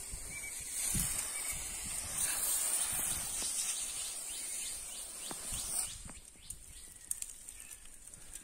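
Pesticide spray hissing from a pressure sprayer's wand nozzle, stopping about six seconds in.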